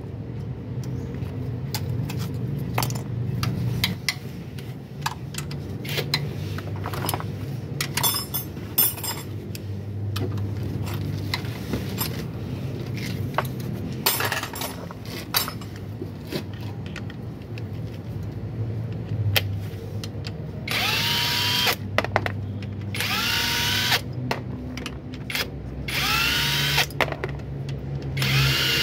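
A power tool's motor runs in four short bursts in the last third, each spinning up in pitch and then holding, as bolts are worked on the balancer shaft assembly under a 2008 Toyota Camry XV40. Before that come scattered metallic clicks and clinks of hand tools.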